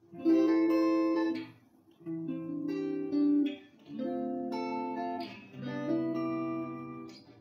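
Background music: four sustained chords, one about every two seconds, each starting sharply and fading.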